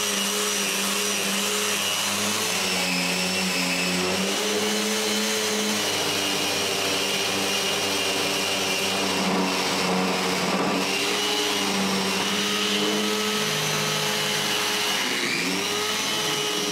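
Electric power sander running steadily while sanding the outside of a wooden box, its motor pitch dipping and rising a little as it is pressed into the work.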